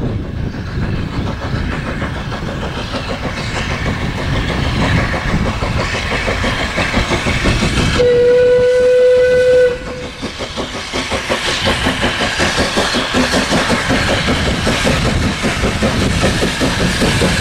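Saddle-tank steam locomotive working hard as it approaches with a train, its exhaust beats steady and growing louder. About halfway through it gives one long blast on its steam whistle.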